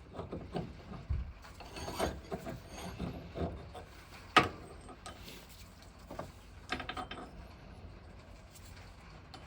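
Irregular knocks and clatter of steel strap brackets being worked by hand, with one sharp metal strike about four and a half seconds in and a few more knocks near seven seconds, then quieter.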